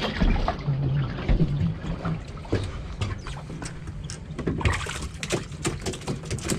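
Water splashing and sloshing in a plastic tub as a fish is rinsed by hand, with scattered sharp knocks and clatter that come thickest in the second half. The fishing boat's engine hums low and steady throughout.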